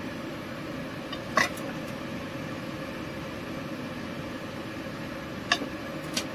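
Sharp clinks of kitchen utensils against cookware: one about a second and a half in, then two close together near the end. Under them is a steady, even hum.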